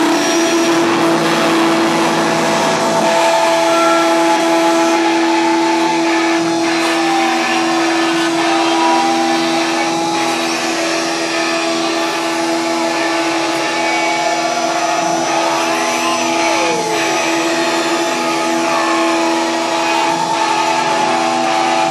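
Live amplified noise performance: a loud, steady wall of noise over a held low drone, with whistling tones that slide up and down.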